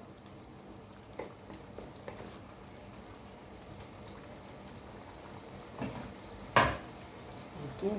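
Tomato, onion and pepper sauce sizzling in a frying pan while being stirred with a wooden spatula, with a few light scrapes. About two-thirds through, a single sharp clank.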